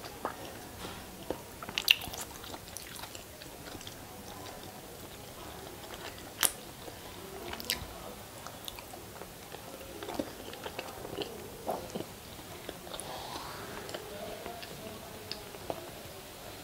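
Mouth sounds of a person eating masala-coated hard-boiled eggs: big bites and wet chewing, with sharp clicks, the loudest about two seconds in and again about six and a half seconds in.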